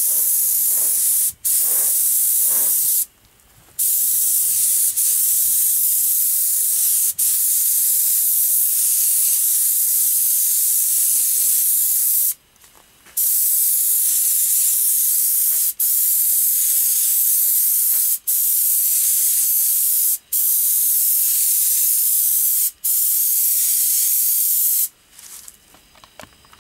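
Gravity-feed air spray gun hissing as it sprays primer, in long passes broken by short gaps, two of them about a second long; it stops near the end.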